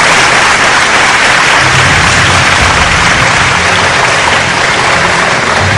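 Large audience applauding steadily, a dense sustained clapping, with low sustained notes underneath.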